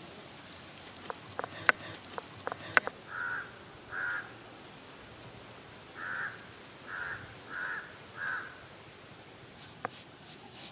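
A crow cawing six times, short harsh calls in a pair and then a run of four. Before the calls come a few sharp clicks and cracks, the loudest sounds here, from whole spices being broken by hand on a stone grinding slab.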